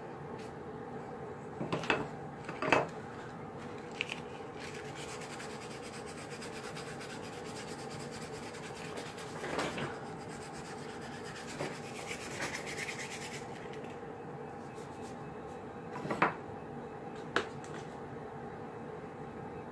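Hand work on a doll part at a table: rubbing and scraping, with a handful of sharp knocks as wooden-handled carving tools are picked up and set down. A steady low hum runs underneath.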